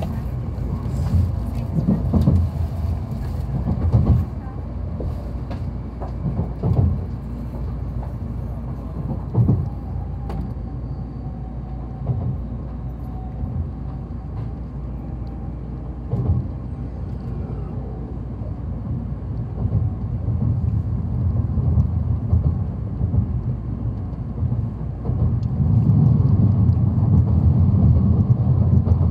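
Inside a moving Nozomi Shinkansen: a steady low rumble of the train running on the track, with occasional short knocks. The rumble grows louder near the end.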